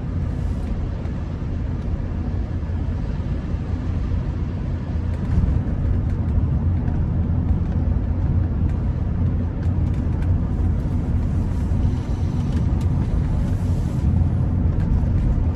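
Interior sound of a Rolls-Royce Silver Spirit on the move: a steady low rumble of engine and road noise, with the hiss of tyres running on a wet road.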